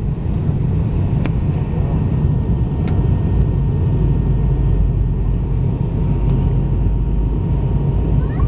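Airliner cabin noise in descent: the steady deep rumble of the jet engines and airflow heard from inside the cabin, with a faint steady whine and two light clicks in the first few seconds.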